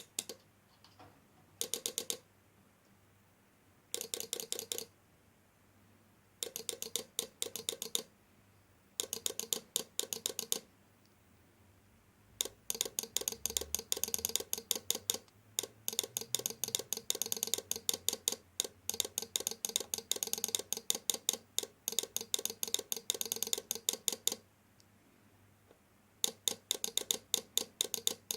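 Rapid electrical clicking from a multi-effect melody car horn's switching unit, sounding in bursts of quick ticks as different tune patterns are run. One long run lasts about twelve seconds, and no horn notes are heard.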